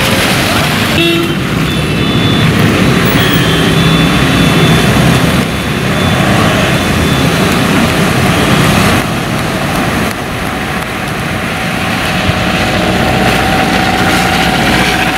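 Road traffic driving through floodwater: vehicle engines running and tyres churning and splashing through the water in a steady wash of noise, with short horn toots.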